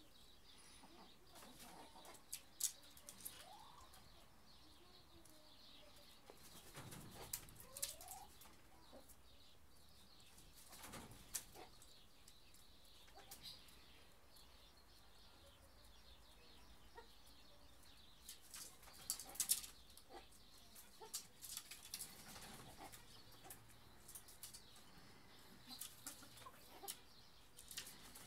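Red-crested turacos stirring in an aviary against near silence: scattered short wing flaps and light knocks among the branches, thickest in a cluster about two-thirds of the way through, with a couple of faint, short rising calls in the first eight seconds.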